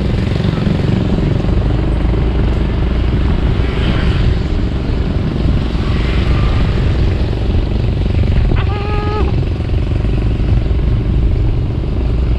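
Motorcycle running steadily on the move, with engine and wind noise on the onboard camera's microphone. A short, steady beep sounds once about two-thirds of the way through.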